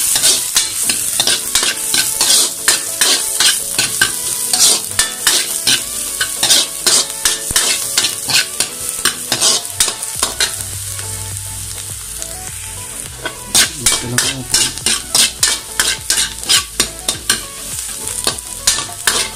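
Chopped garlic, onion and chilies sizzling in hot oil in a wok while a metal ladle stirs them, scraping and clacking rapidly against the pan. About halfway through the ladle strokes stop for a few seconds, leaving only the sizzle, then start again.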